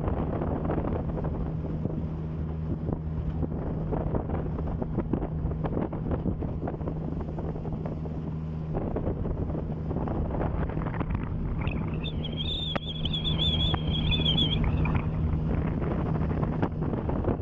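A boat's outboard motor running steadily under way, with wind buffeting the microphone. A high wavering whistle sounds for about three seconds past the middle.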